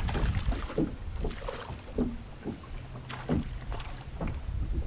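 Wind buffeting the microphone over choppy water lapping against a plastic kayak hull, with many scattered small knocks and splashes.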